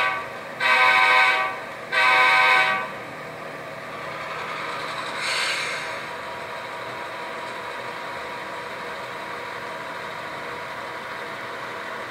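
HO scale model diesel locomotive's sound decoder sounding its horn through the model's small speaker: the end of one blast and then two more, each about a second long. Then a brief hiss about five seconds in, and the locomotive's engine sound running steadily.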